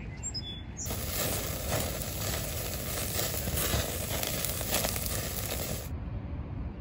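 Burgers and pineapple rings sizzling and crackling on a grill over open flames. The sizzle starts suddenly about a second in and cuts off suddenly near the end.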